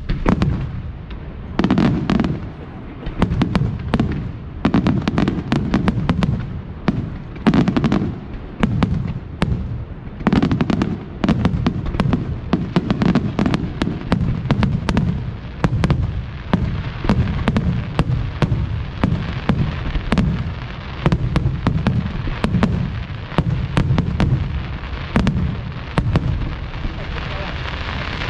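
Fireworks display: a dense, unbroken run of sharp cracks and bangs over a deep rumble of booms, with louder peaks about once a second.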